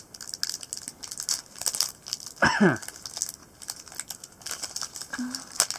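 Shiny foil trading-card packet crinkling and crackling as fingers work at opening it. About two and a half seconds in, a short voice sound slides down in pitch.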